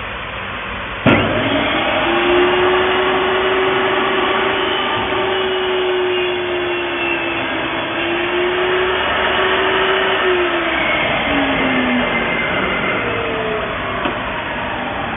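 XCORT XMY01-255 table saw, 1800 W motor with a 254 mm blade, starting with a sharp click about a second in and then running with a steady whine over a rushing hiss while a board is cut. The whine wavers and falls in pitch near the end.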